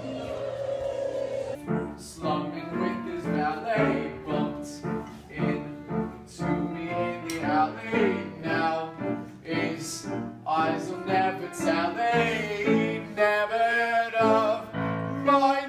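Choir-like singing: several voices singing together in a classical, operatic style, moving from note to note with wavering held tones.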